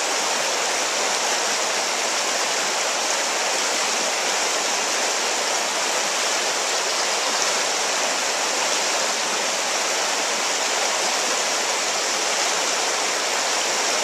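Shallow river rapids rushing steadily over rocks: a constant, even wash of white water.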